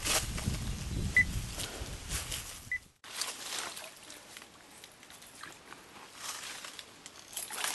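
Wind buffeting the microphone in open bush, with two short high beeps, then, after a cut, quieter water-side ambience with faint splashes and rustles as a hooked fish is drawn to the surface on a fishing line.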